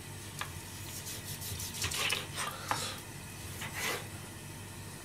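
Kitchen knife slicing a cooked octopus tentacle on a plastic cutting board: a few short, soft cutting strokes with the blade meeting the board, spaced a second or so apart.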